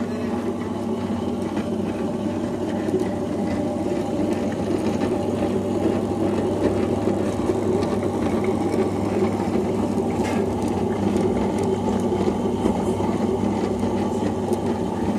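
Panasonic MK-SW200 tabletop wet grinder running, its motor humming steadily as the steel drum turns against the roller stone.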